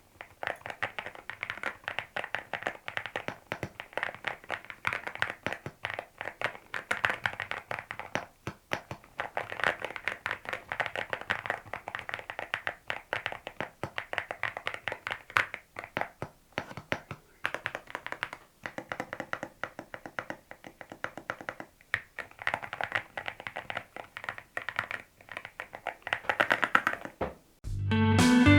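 Fast typing on a mechanical keyboard: a dense run of key clacks with brief pauses. Electric-guitar music comes in near the end.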